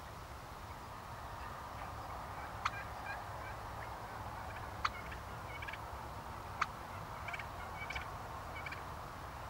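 Wild turkeys calling: three sharp single notes about two seconds apart, with softer short notes in quick little groups between them, over a steady low rumble.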